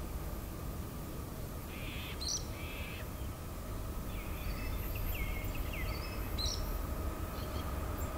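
Birds give several short chirps and whistling calls over a low, steady rumble from an approaching diesel-hauled freight train, which grows slowly louder as the locomotive nears.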